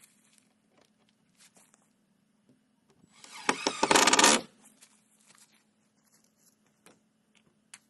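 Cordless drill driving a screw through a 2x4 into old barn-wood boards, one burst of about a second and a half roughly three seconds in. A few light knocks and taps of wood being handled come before and after it.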